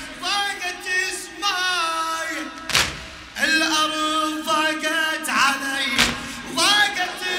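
A solo male radood singing a Husseini latmiya elegy in Arabic into microphones, in long held lines that bend and waver in pitch. A sharp thump cuts in about every three seconds.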